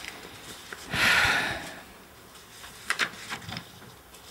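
Sheets of paper handled and shuffled close to a handheld microphone: one loud rustle about a second in, then a few light clicks and taps.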